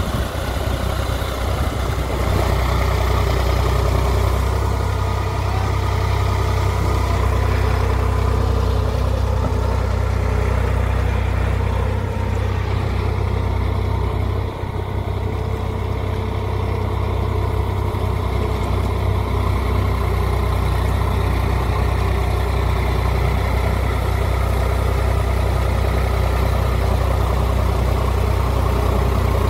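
Sonalika DI 47 RX tractor's diesel engine running steadily as the tractor drives through wet paddy-field mud with a rotavator hitched behind.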